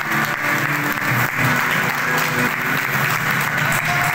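Crowd clapping steadily.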